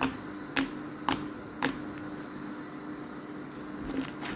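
Butter slime being squeezed and worked by hand, giving sharp clicking pops: four about half a second apart, then a pause and two more near the end.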